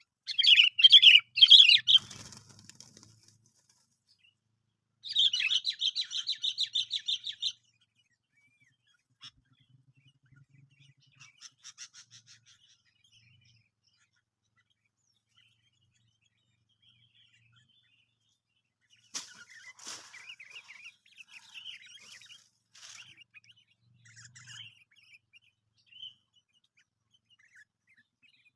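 Sooty-headed bulbuls calling: loud bursts of rapid chattering calls at the start and again about five seconds in, then fainter scattered calls, with another run of calls about 19 seconds in.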